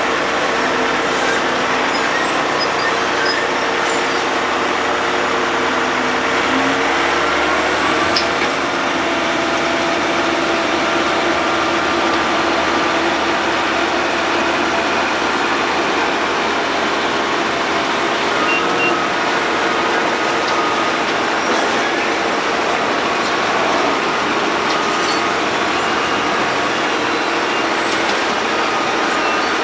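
Road planing machine (cold planer) at work, its diesel engine and cutting drum milling up the road surface: a loud, steady mechanical din with engine tones that shift in pitch about seven seconds in.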